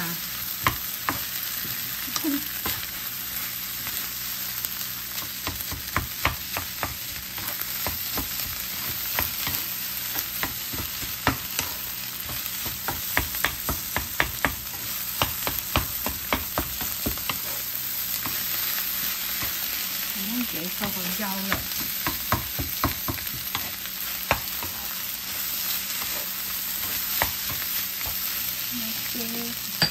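Rice with tomato sizzling in a hot nonstick frying pan while a wooden spatula stirs and scrapes through it. Many sharp taps of the spatula against the pan come over a steady frying hiss, thickest in the middle stretch.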